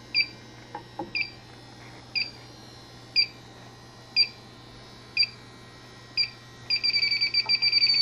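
Inficon handheld electronic refrigerant leak detector beeping about once a second as it is swept along an air conditioner's evaporator coil. About seven seconds in the beeps speed up into a fast run: the detector is alarming on refrigerant leaking from the coil.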